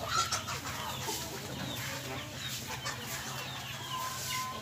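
Chickens clucking in the background, with many short high calls, over a steady low hum.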